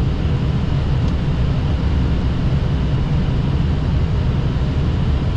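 Steady rumble and rush of airflow and engines inside an Airbus A320 cockpit on final approach, a couple of hundred feet above the runway.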